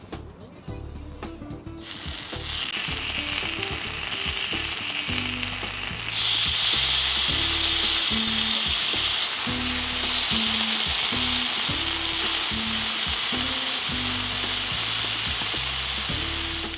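Thin slices of meat sizzling on the ribbed cast-iron griddle plate of a Snow Peak Grill Burner Seppoen, starting about two seconds in and getting louder about six seconds in. Background music plays underneath.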